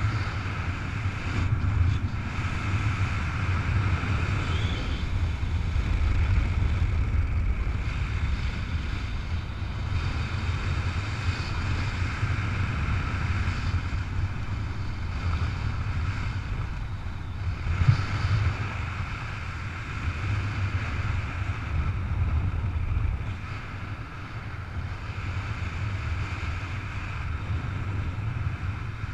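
Airflow of a paraglider in flight buffeting the camera's microphone: a steady low wind rumble, with one brief knock about eighteen seconds in.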